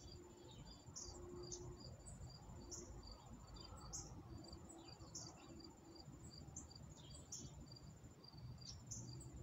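Faint insect chorus, crickets by the sound: one high, continuous pulsing trill, a second insect in short repeating pulses just below it, and a few brief high chirps scattered through.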